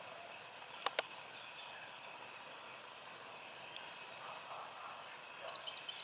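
Steady outdoor background noise with faint bird calls. Two sharp clicks come about a second in, and light, high chirps begin near the end.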